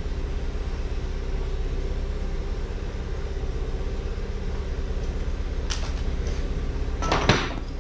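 A steady low mechanical hum from a running motor, with a few short knocks of tools on metal near the end.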